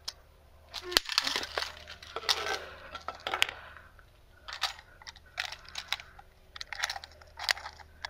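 Bolt cutters and a combination padlock with a hardened steel shackle: a sharp metallic snap about a second in, then a run of metal clicks and clinks as the lock and its cut shackle are handled.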